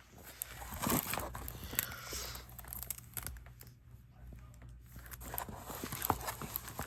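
Plastic crinkling and rustling in uneven bursts with small clicks as plastic is handled.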